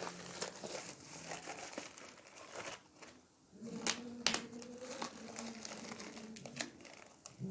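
Plastic courier packaging being crinkled and torn open by hand, with lots of small crackles and two sharp snaps about four seconds in.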